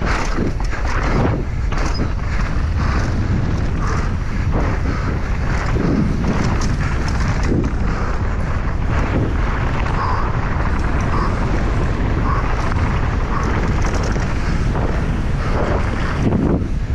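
Wind buffeting an action-camera microphone at speed, with constant knocks and rattles, as from a downhill mountain bike ridden fast over rough ground.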